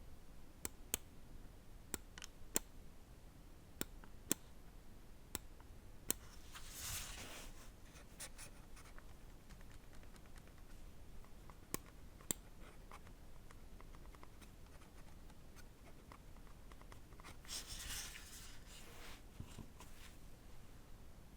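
Lamzu Maya 4K gaming mouse being tested: faint single sharp button clicks, often in close pairs, and two stretches of its scroll wheel being spun, a rapid run of fine notched ticks from the TTC Silver encoder, about seven seconds in and again near the end.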